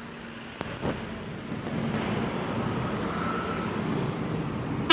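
Road traffic noise from a passing vehicle, swelling about a second and a half in and then holding steady. A sharp click about half a second in, then a short knock.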